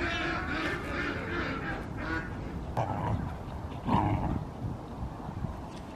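Waterfowl calling: a run of nasal honks, about three a second, that stops a couple of seconds in, followed by two short scuffling knocks.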